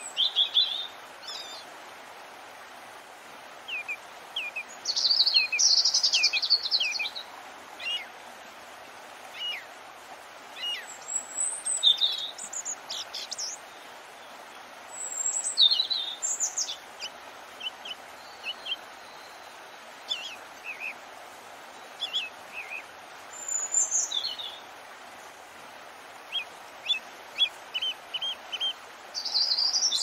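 Several songbirds chirping and singing in short bouts, some quick repeated chirps and some louder song phrases, over a steady, soft rush of water.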